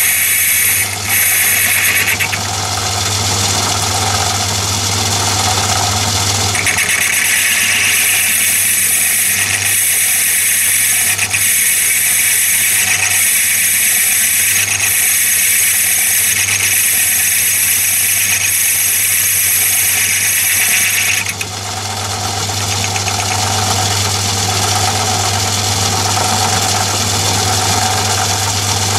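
A metal lathe runs with a steady motor hum while a single-point tool takes a finishing facing cut across a spinning cast iron weight. The high cutting noise sounds briefly at the start, stops, then runs again from about a quarter of the way in until about three-quarters through. After that only the lathe is left running.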